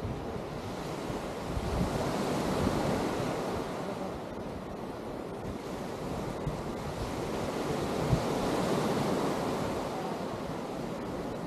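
Atlantic surf washing onto the sand, swelling twice as waves break, with wind buffeting the microphone.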